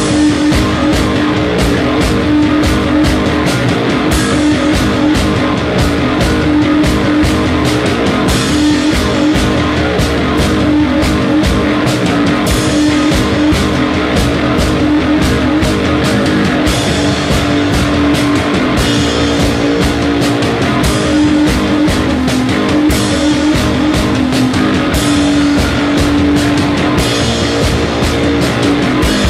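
Rock music with guitar and drums, playing steadily throughout.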